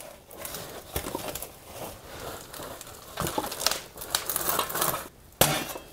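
A cloth rag rubbing and scraping caked black grime out of a snowblower's sheet-metal belly pan, with loose dirt spilling onto cardboard. Irregular rustling and scraping, with a few sharper knocks of the pan.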